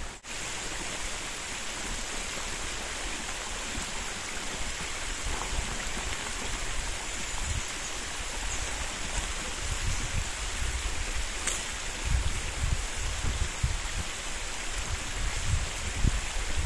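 Small mountain brook flowing over stones: a steady rush of running water.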